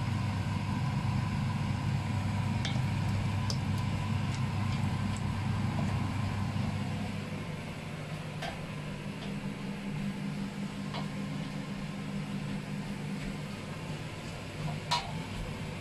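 Steady low mechanical hum with scattered light knocks of wooden utensils against a steel wok as noodles are tossed; one sharper knock comes near the end.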